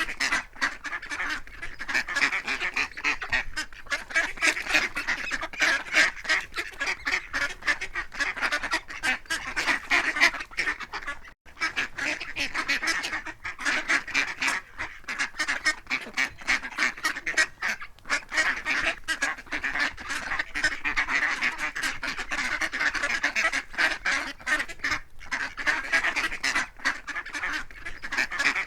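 A flock of ducks quacking continuously, many calls overlapping with no pauses, broken by one brief gap about a third of the way through.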